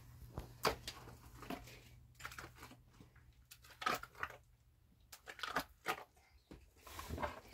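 Wet plaster being scooped up and pressed and smeared by hand onto a cinder-block wall: irregular soft squelches, slaps and scrapes, with a faint low hum in the first half.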